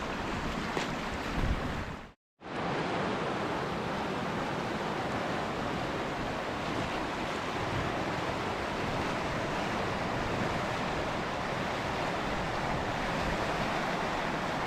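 Steady rushing of river water, an even noise with no distinct events, broken by a brief gap of silence about two seconds in.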